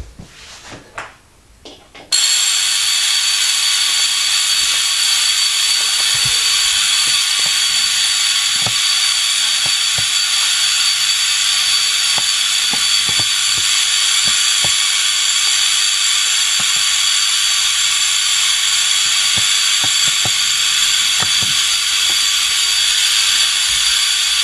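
Bottle-enclosed spark gap of a Tesla hairpin circuit firing continuously while the circuit runs: a loud, steady hiss with several high whining tones and faint scattered clicks. It switches on abruptly about two seconds in and cuts off abruptly just before the end.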